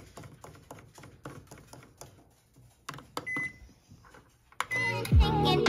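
Microwave oven's rotary control dial clicking step by step as it is turned to set the time, then one short beep as the start button is pressed. Music comes in loudly near the end.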